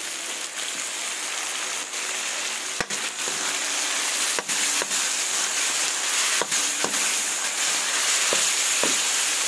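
Chopped onion and tomato sautéing in oil in a wok, with a steady sizzle that grows louder about four seconds in. A spatula stirs and scrapes the pan, giving several sharp clicks against the metal.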